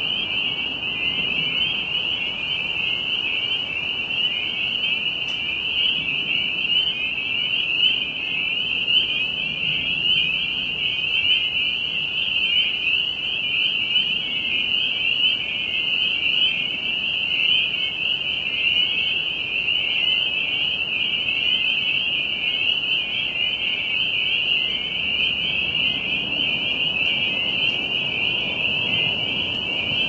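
Dense chorus of spring peepers, small tree frogs, calling continuously: many overlapping high-pitched short rising peeps that blend into one steady, unbroken sound.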